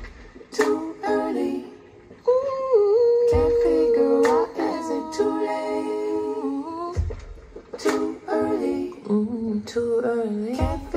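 A song played back through Diptyque isodynamic panel loudspeakers: a held, wordless vocal line over plucked strings, with a deep bass hit three times, about every three and a half seconds.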